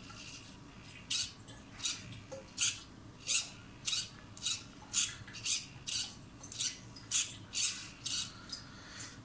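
Futaba standard RC servo working the steering of a toy's front axle, whirring in short bursts about twice a second as it swings the front wheels back and forth.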